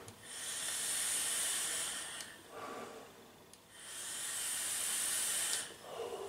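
Two long hissing draws, about two seconds each, on an e-cigarette with an Aromamizer rebuildable tank: air is pulled through a 0.28 ohm dual coil firing at about 45 W, direct-to-lung. Between the draws, and again near the end, comes a softer breath out as the vapour cloud is exhaled.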